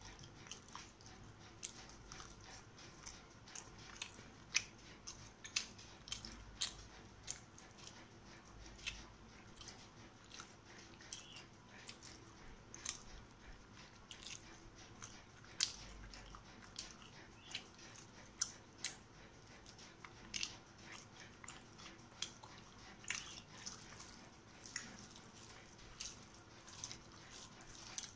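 A person chewing food close to the microphone, with irregular wet mouth clicks and smacks about one or two a second.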